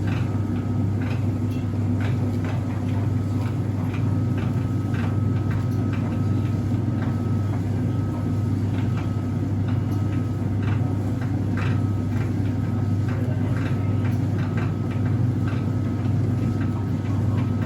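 Whirlpool heat pump tumble dryer running with a strong steady low hum, a thin high whine that comes and goes, and irregular clicks and knocks. The owner takes this noise for a fault but does not know its cause.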